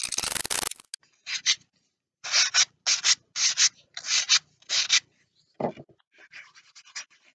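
P180 abrasive paper on a sanding block rubbing a balsa-wood wheel: a short stretch of continuous rubbing, then a run of separate short sanding strokes, roughly two a second, with a pause and fainter strokes near the end.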